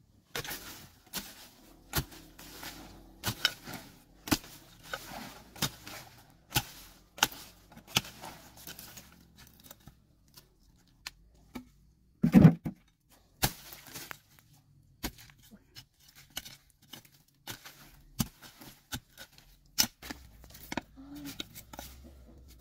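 A digging tool chopping into dry forest soil: repeated sharp strikes, about one or two a second, with earth scraping and crumbling between them and a pause in the middle. About twelve seconds in there is a single louder dull thump.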